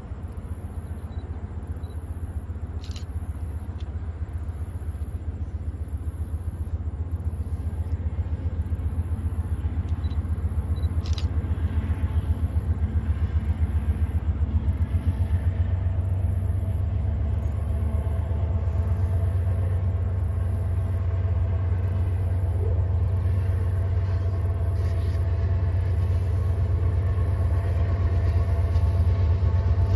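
An approaching Norfolk Southern freight train: a deep low rumble from its diesel locomotives that grows steadily louder. Faint steady tones join in during the second half.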